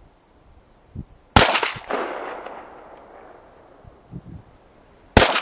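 Two shots from a Norinco JW2000 12-gauge double-barrel coach gun with 12-inch barrels, firing double-aught buckshot one barrel at a time, about four seconds apart. Each report is sharp and loud, with a second swell about half a second later, and trails off over a couple of seconds.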